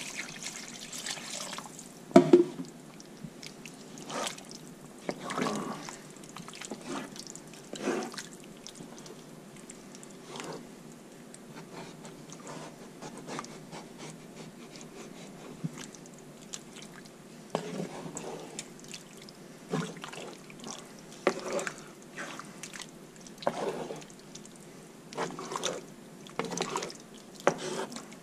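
Wooden spoon stirring a thin, freshly watered gumbo in a cast iron pot: wet sloshes and scrapes against the pot every second or two, the sharpest a knock about two seconds in. A pour of water trails off right at the start.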